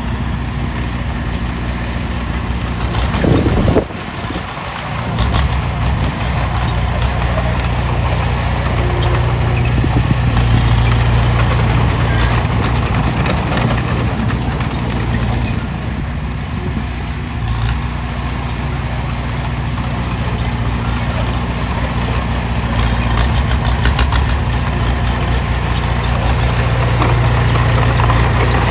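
Heavy diesel engine of an excavator running steadily with a deep drone, broken briefly about four seconds in.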